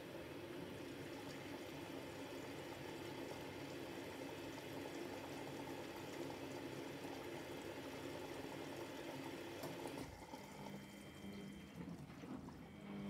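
Miele Novotronic W715 washing machine on a rinse: a steady rush of water into and around the drum holding the wet duvet, typical of the drum filling for another rinse. It cuts off abruptly about ten seconds in, leaving the quieter hum of the machine.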